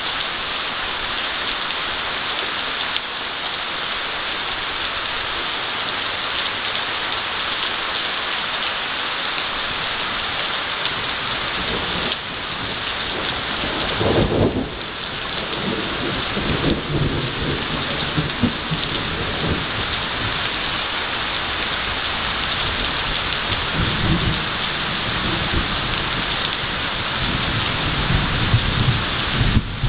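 Heavy rain pouring steadily during a thunderstorm. From about halfway through, thunder rumbles in several rolls, loudest just after the middle and again near the end.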